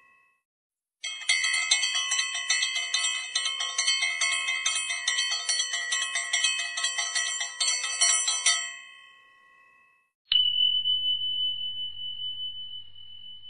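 Puja bell rung rapidly and continuously, starting about a second in and dying away after about seven and a half seconds. Near the end, a single struck ring with one clear high tone that fades slowly.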